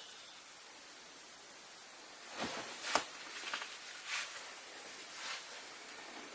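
A Nokia 3220 handset being handled over a low hiss: a sharp click about three seconds in, among several softer clicks and rustles that start a little before it and stop shortly before the end.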